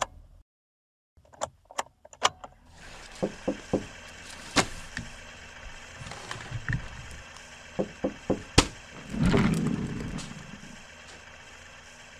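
Sound effects: a few sharp clicks, then a steady room hum about three seconds in, with scattered knocks and clicks over it. A louder rushing noise swells about nine seconds in and fades.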